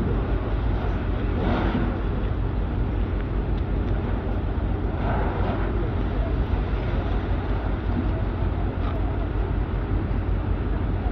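Steady low rumble of heavy-machinery diesel engines running, unchanging throughout.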